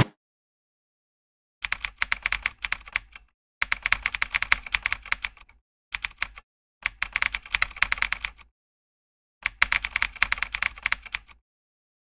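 Typing sound effect: rapid key clicks in five runs separated by short pauses, starting about a second and a half in.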